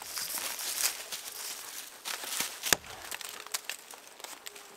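An axe chopping a notch into a poplar trunk: a chop right at the start and a harder, louder one a little under three seconds in, with fainter ticks of wood between.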